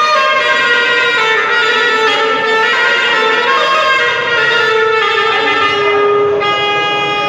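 Rababa, the Bedouin single-string bowed fiddle, playing an ataba melody solo, in long held notes that slide from one pitch to the next.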